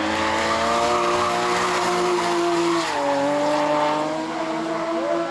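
BMW E30 drift car sliding sideways, its engine held at high revs over a continuous hiss of skidding, squealing tyres. The revs drop once about three seconds in, then hold steady again.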